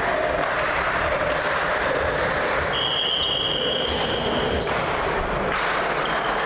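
Echoing sports-hall noise from spectators and players at a volleyball match. A single high whistle note is held for about two seconds near the middle, with a few dull low knocks.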